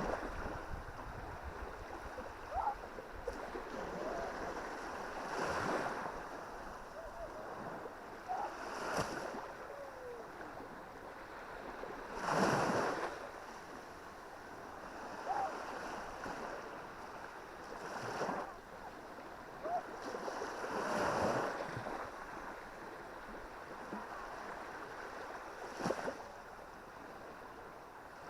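Small Baltic Sea waves breaking and washing up the beach, one swell of surf every few seconds, the loudest about twelve seconds in.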